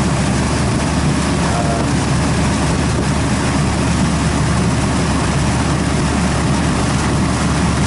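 Refrigeration condensing unit running: the newly replaced compressor humming steadily together with the condenser fan, an even drone that holds level throughout.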